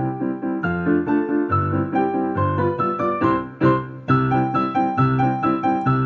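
Digital piano playing a four-hand duet. The upper (Primo) part is played live over a prerecorded lower (Secondo) part, a melody over a steady bass-and-chord accompaniment, with a brief break about four seconds in.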